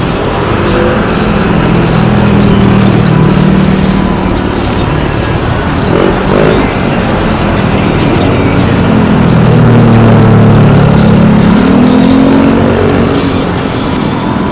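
Motor vehicles passing on a road, engine notes swelling twice and fading, over a steady loud rushing noise.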